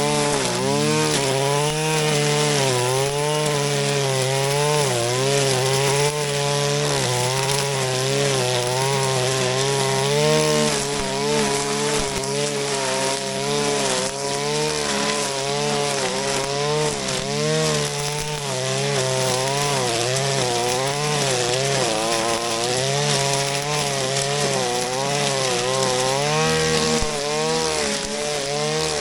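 Shindaiwa RK3026-PT 25.4 cc two-stroke brush cutter running at high speed while cutting grass. Its pitch dips and recovers about once a second as the cutting head takes load in the grass.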